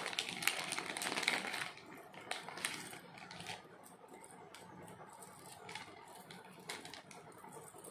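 Clear plastic bag and wrapping crinkling as the jewellery is handled, with small clicks and clinks of metal necklace pieces knocking together. Louder for the first two seconds or so, then fainter scattered clicks.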